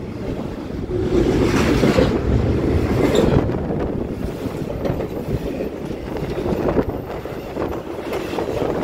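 Norfolk Southern intermodal freight train passing right alongside: a steady rumble and clatter of steel wheels on the rails as double-stack container cars and trailer cars roll by, with wind buffeting the microphone.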